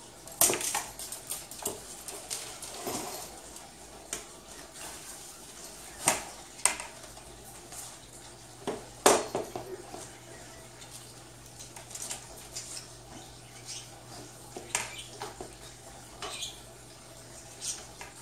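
Metal frame of a folding rollaway bed clinking and knocking as it is handled, a scattering of sharp taps with louder knocks about half a second, six and nine seconds in.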